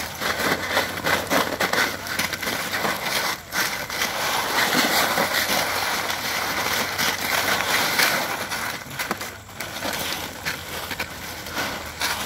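Loose ice cubes crunching and clattering under dogs' paws as they walk about in a plastic kiddie pool full of ice, a dense, continuous crackle of many small clicks.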